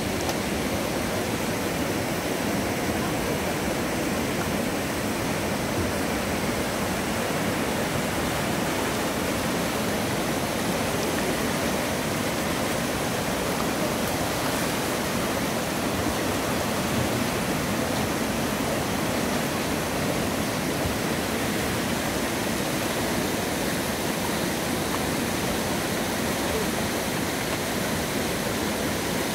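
River whitewater rapids rushing steadily over rocks.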